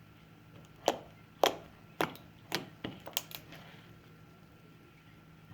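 Slime being squished and pressed by hand, giving a run of short sharp pops, about seven in the first three and a half seconds, then quiet handling.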